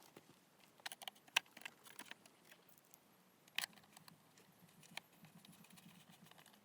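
Faint, scattered clicks and light taps of parts being handled in a car's engine bay during reassembly, with a few sharper knocks, the clearest about a second and a half in and again past three and a half seconds.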